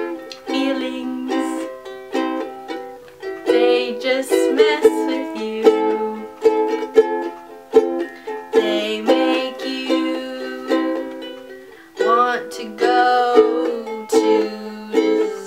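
Ukulele playing a run of plucked chords, with a brief drop just before twelve seconds in and a sudden restart.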